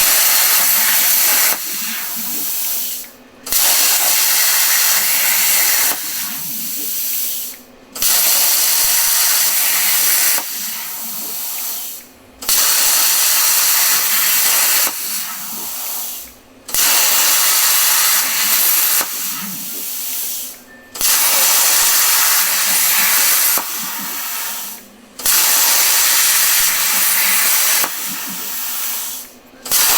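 Plasma cutter torch hissing loudly as it cuts steel on a CNC table. The hiss runs in repeating cycles about every four and a half seconds: a couple of seconds loud, then softer, then a brief break before it comes back.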